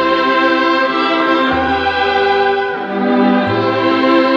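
Orchestral background music: violins carry a held, sweeping melody over low bass notes in an instrumental passage of a French chanson, with no voice singing.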